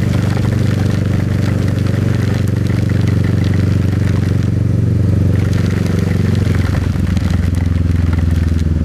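Motorcycle engine running steadily while riding, with a steady hiss of wind and heavy rain over it. The engine note shifts slightly about seven seconds in.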